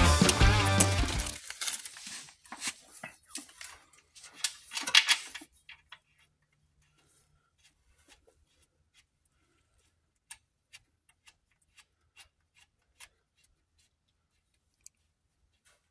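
Rock music cutting off about a second in, then metal clinks and clicks of hand tools working on the timing-chain bolts of a VW EA888 2.0 TSI engine. These thin out to a few single clicks about two a second near the end.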